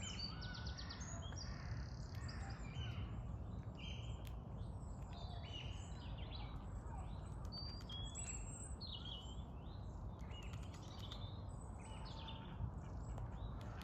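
Several small songbirds chirping and singing in short, varied phrases, over a steady low background rumble.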